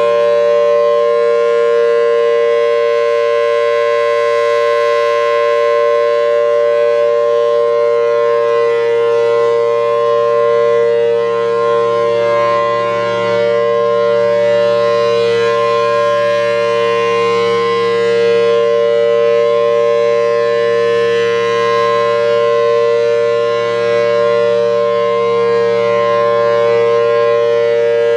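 Federal Signal Thunderbolt 1000T civil defense siren, a rare 4/5-port rotor with a C-series blower, sounding the steady full-alert signal: a loud dual tone a major third apart, held at constant pitch. The sound swells and fades slightly as the rotating head sweeps.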